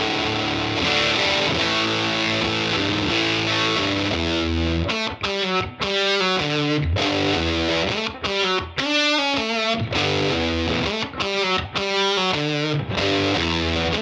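Electric guitar played through a Satellite Amplifiers White JFET overdrive pedal into a Fender Princeton amp, with a driven, distorted tone. Held chords ring for the first few seconds, then give way to short, chopped chords and riff notes with brief gaps between them.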